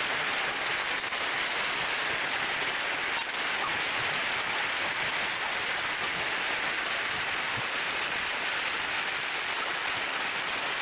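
Thousands of glass marbles rolling and clicking against one another across a flat board: a dense, steady clatter of countless tiny ticks.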